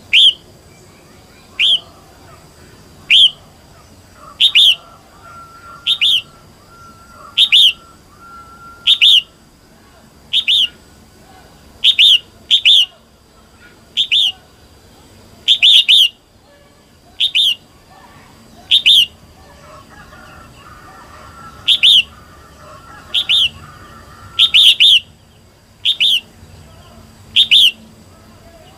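Female red-whiskered bulbul call: a short, sharp, loud note repeated about every one and a half seconds, sometimes given as a quick double. It is the hen's call that bird keepers use to excite and provoke male bulbuls.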